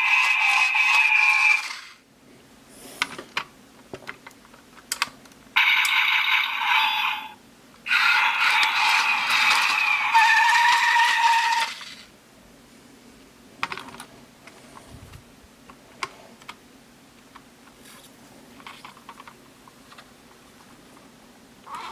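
Hot Wheels Sharkruiser toy car playing its built-in electronic sounds and music through a small tinny speaker, in three bursts of a few seconds each. Between and after the bursts come scattered light plastic clicks.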